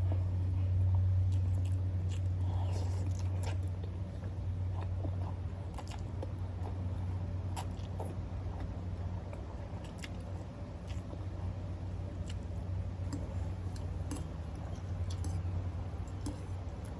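A person chewing a mouthful of ramen noodles and boiled egg close to the microphone, with scattered wet mouth clicks, over a steady low hum.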